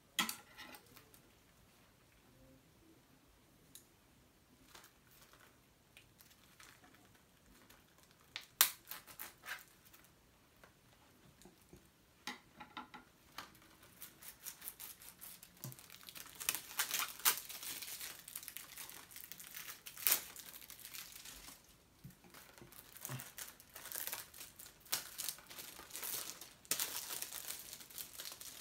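Plastic shrink wrap being picked at and peeled off a Blu-ray case, crinkling and crackling. Scattered sharp ticks and crinkles for the first half, the loudest a sharp click about a third of the way in, then dense, continuous crinkling through the second half with brief pauses.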